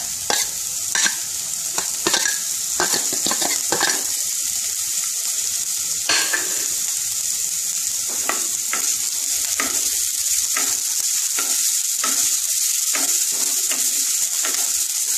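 Chopped onion, carrot and cauliflower sizzling in hot oil in a non-stick kadai, a steady high hiss. Short clicks and scrapes run through it as the cauliflower is tipped in and the vegetables are stirred against the pan with a wooden spatula.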